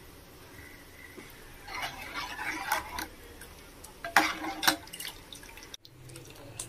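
Steel ladle scraping and clinking against the side of a steel pot while stirring thick soup, in two spells: one about two seconds in, and a sharper one about four seconds in.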